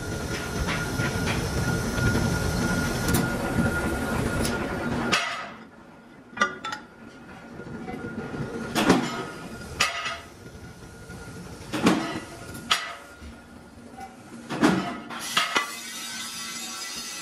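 Heavy metal-forming press running with a loud, steady rumble that cuts off suddenly about five seconds in. Then come a series of sharp, separate clanks of steel parts being handled and set down at the press.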